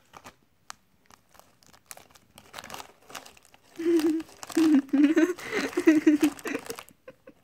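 Thin plastic cookie packet crinkling and crackling as a hamster works its way inside it. From about four seconds in, a louder wordless voice rises over it for about three seconds, wavering.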